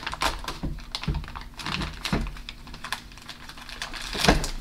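Irregular small clicks and taps from handling a plastic package of small wheel screws, with a louder knock near the end.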